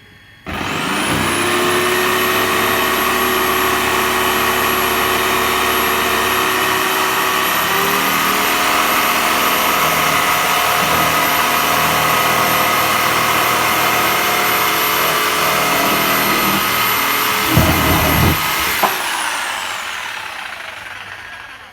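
Crown 800-watt jigsaw with a wood blade switched on about half a second in and running steadily with a high motor whine while it saws through wood. Its pitch steps up slightly about eight seconds in. A few knocks come near the end of the cut, then the saw is switched off and winds down.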